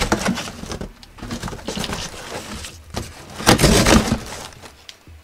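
Rustling, crinkling and scraping of a parcel being unpacked: plastic air-cushion packaging and cardboard handled by hand, irregular, loudest about three and a half seconds in.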